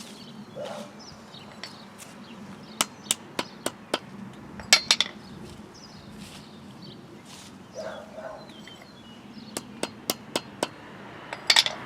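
A hammer tapping the cut ends of lilac stems on a hard surface to split them open so they take up water better. There are two runs of about five sharp taps, about four a second, each followed by a quick cluster of knocks.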